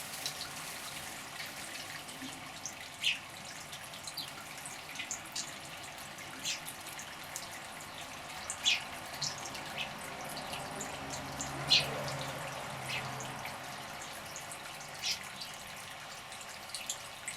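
Water in a bird bath splashing and dripping as birds bathe: irregular short splashes over a steady faint hiss.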